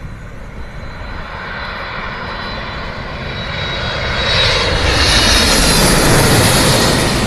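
Jet airliner on landing approach passing low overhead: the engine roar and a high fan whine build steadily, loudest in the last few seconds before starting to fade.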